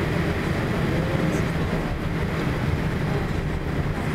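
Boeing 787 Dreamliner's jet engines running at taxi power, heard from inside the passenger cabin as a steady low drone with a rumble underneath.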